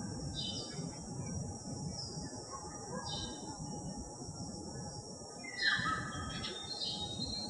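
A few short bird calls, some sliding downward in pitch, over soft background music.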